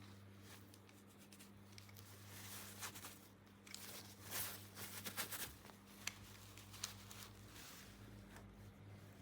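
Small plastic toy pieces and packaging handled: soft rustling with a few light clicks, busiest between about four and six seconds in.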